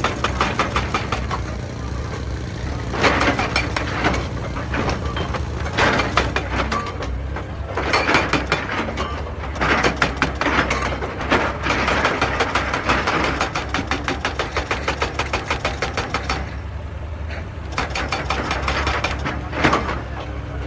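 Excavator's diesel engine running steadily, with repeated bursts of rapid knocking and scraping as the machine works rock.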